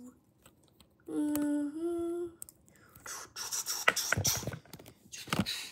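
A person humming two held notes, the second a little higher than the first. After that comes a couple of seconds of scratchy rustling with a few sharp clicks.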